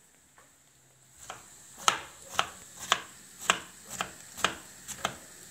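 Kitchen knife dicing a cucumber on a wooden cutting board: sharp knocks of the blade on the board, about two a second, starting about a second in.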